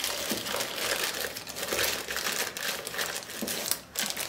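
Thin clear polythene bag crinkling as hands open and work it: a continuous crackly rustle with a brief lull near the end.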